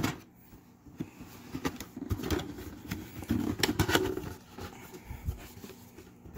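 Cardboard retail box being opened by hand: flaps lifted and handled, giving scattered scrapes, rustles and knocks, busiest around the middle, with a low thump near the end.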